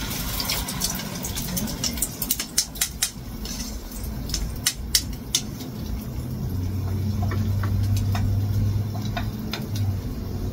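Beaten egg and chives poured into hot oil in a frying pan and frying, with a hiss at first and chopsticks clicking and tapping on the pan many times as the egg is spread out. A low steady hum comes in about halfway through.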